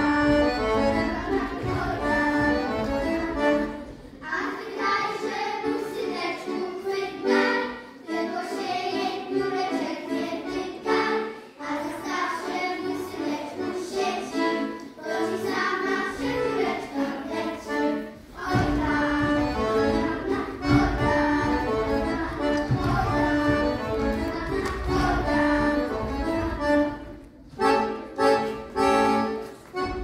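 Lively Polish folk dance music led by an accordion, broken by a few short pauses between phrases.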